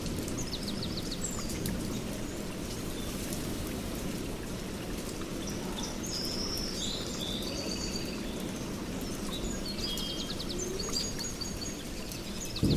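Steady rain with songbirds chirping and trilling over it, in several short bouts.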